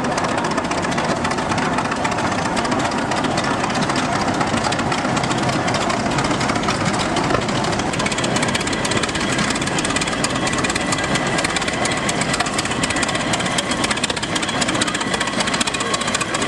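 Engine of an antique Minneapolis Threshing Machine Co. tractor running under way, a fast, even beat of firing strokes.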